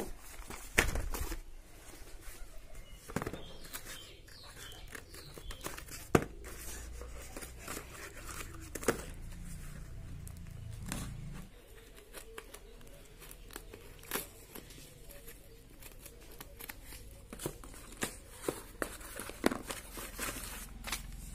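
Cardboard parcels being handled and cut open with scissors: scattered knocks and taps of cardboard, with snipping and tearing of the packaging.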